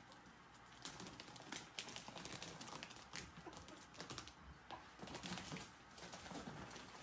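Ferrets scrambling in and around a clear ribbed plastic hose: a rapid, irregular patter of light clicks and scrapes as claws and bodies rub the ribbed plastic, starting about a second in.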